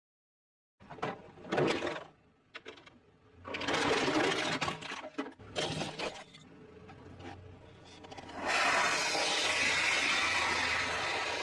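Plastic toys cracking and crunching as a car rolls over them, then in the last few seconds a crushed aerosol can hissing steadily as it sprays out foam.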